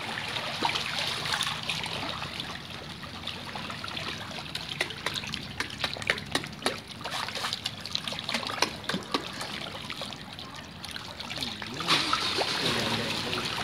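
A dense crowd of pangasius catfish churning at the water's surface as they are fed: continuous splashing and sloshing, broken by many quick wet slaps and smacks as the fish gulp and thrash.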